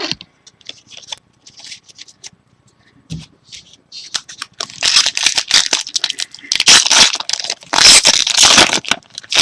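A trading-card pack wrapper being torn open and crinkled. Light rustling and handling clicks come first, then two long stretches of loud tearing and crinkling in the second half.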